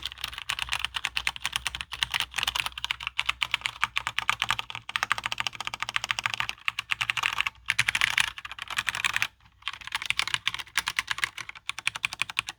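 Fast, continuous typing on a Cherry G80-3000 mechanical keyboard with linear Cherry MX Red switches and Acorn FX2 keycaps, the keystrokes clacking in quick runs. The typing breaks briefly about nine seconds in.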